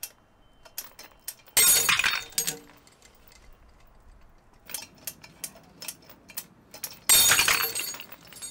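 Two 3D-printed PLA tensile test specimens snapping under load at about 133 kg, one about a second and a half in and one near the end. Each is a sharp crack followed by a ringing rattle of the steel hooks and chain, with light clinks of the hooks between the two breaks.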